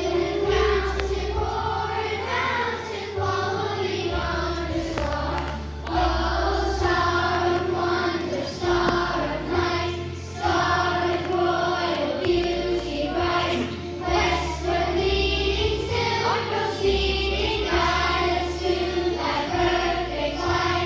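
Choir singing a song over instrumental accompaniment, with bass notes that change every second or two.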